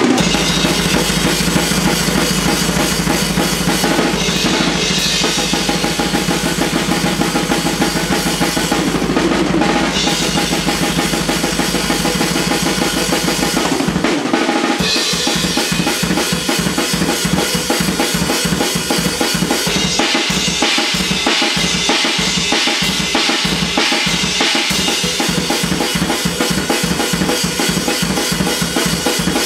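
Metal drum kit playing fast patterns: rapid bass drum strokes under snare hits and cymbals. The pattern changes about halfway through, and the quick kicks become more clearly separated.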